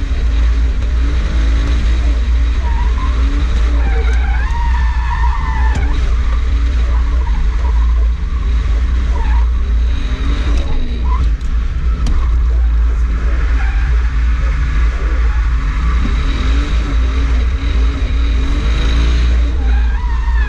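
Toyota JZX100's engine heard from inside the cabin, revving up and down repeatedly while drifting, over a heavy low drone, with the tyres skidding and squealing at times.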